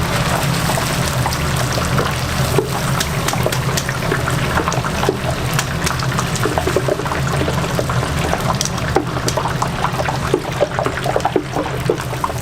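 Chicken frying in hot oil, crackling and bubbling steadily over a low hum.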